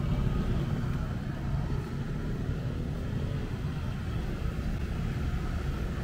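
Street traffic ambience: a steady low rumble of motor vehicles running nearby.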